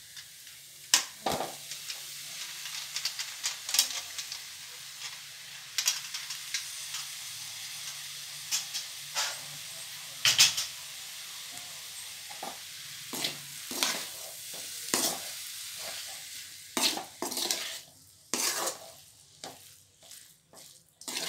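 Boiled goat intestine pieces sizzling in hot oil and masala in an aluminium kadai, while a metal spatula scrapes and clanks against the pan as they are stirred. The sizzle dies down near the end while the scraping strokes go on.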